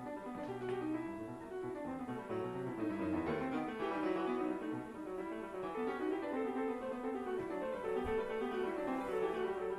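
Background music: a classical solo keyboard piece, most likely played on piano, with quick-moving notes throughout.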